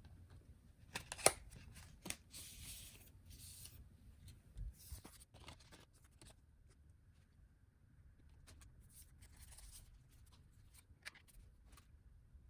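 Phone packaging being handled during an unboxing: a few sharp clicks and taps, the loudest about a second in, between short bursts of rustling and scraping.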